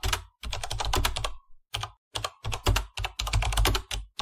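Computer-keyboard typing clicks, fast and dense, in several bursts broken by short pauses.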